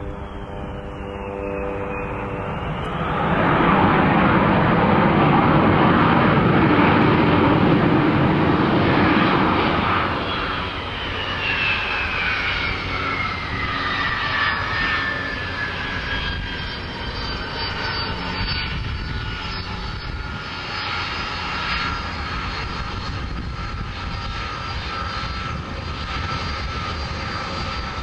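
An aircraft passing by. A loud rushing engine noise peaks a few seconds in and eases off, then a high whine falls steadily in pitch and settles.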